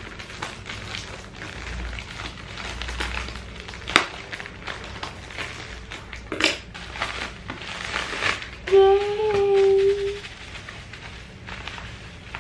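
Plastic packaging and bubble wrap crinkling and rustling as a parcel is opened by hand, with scattered clicks and snips. A short steady hummed note comes about nine seconds in and is the loudest sound.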